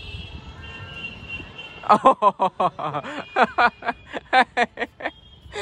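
Laughter in a run of quick, loud bursts, starting about two seconds in, over a low rumble.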